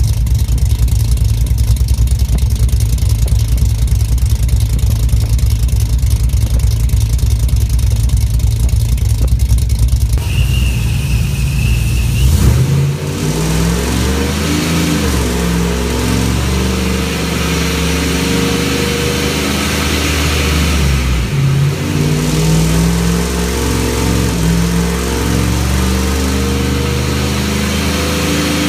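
Supercharged 5.3-litre V8 pickup with a built cam and ProCharger, first running steadily, then revving up under load on a chassis dyno. From about 12 seconds in the engine note climbs steadily in pitch, drops briefly about two-thirds of the way through, then climbs again.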